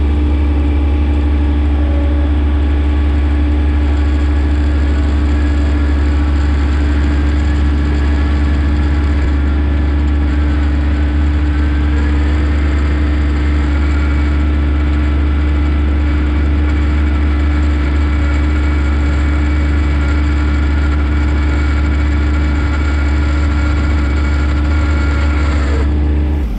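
A John Deere 1026R compact tractor's three-cylinder diesel engine runs steadily while the tractor drives along, heard close up from the operator's seat.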